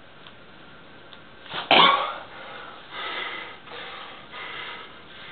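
A man's heavy breathing from the strain of bending a horseshoe by hand: one loud forceful exhale a little under two seconds in, then several shorter hard breaths.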